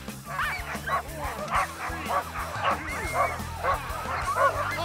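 A pack of sled dogs barking and yipping together, many short calls overlapping without a break.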